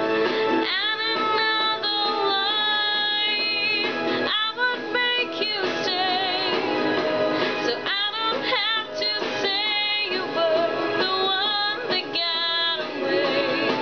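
A young woman singing a pop ballad over instrumental accompaniment, her held notes wavering with vibrato.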